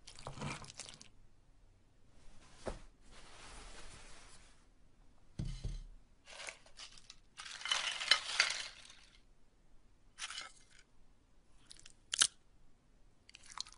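Irregular crunching and crinkling handling noises of food being prepared, in short uneven bursts, with a sharp click near the end.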